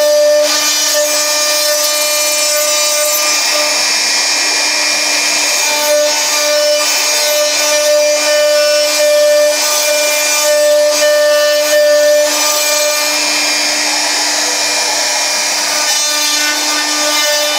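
Homemade CNC router milling a pocket into a wooden board with an end mill. A steady whine runs under a rough, rasping cutting noise, and the whine gets a little stronger from about six to twelve seconds in.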